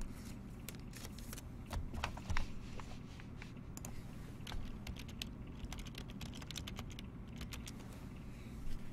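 Computer keyboard being typed on, short clicks in irregular runs, over a low steady hum.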